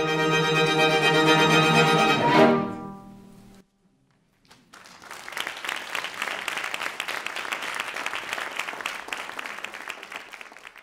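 String quartet of two violins, viola and cello plays a sustained closing chord that ends on a final accented stroke about two and a half seconds in and rings away. After a brief silence, an audience applauds, the clapping fading out near the end.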